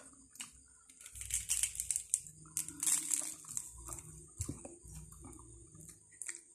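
Crunching and crackling of crispy fried food as it is torn by hand, bitten and chewed, in a run of short crackles.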